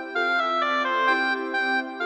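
Music: a keyboard melody of held notes that change every half second or so, over a steady low note.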